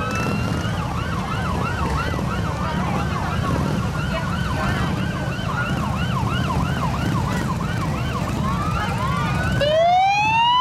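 Several police motorcycle sirens sounding together in a fast rising-and-falling yelp, overlapping and out of step, over the low rumble of the motorcycles' engines. Near the end one siren switches to a steep rising wail that is louder than the rest.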